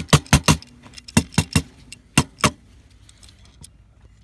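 AR-15 pistol lower receiver shaken by hand, parts inside clacking in three quick runs of sharp metallic clicks that stop after about two and a half seconds. The rattle is the sign of something loose inside the lower, which does not sound right.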